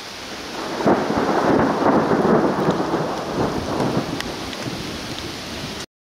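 Thunder rumbling and crackling over steady rain from a severe thunderstorm. It builds about a second in, slowly fades, then cuts off abruptly near the end.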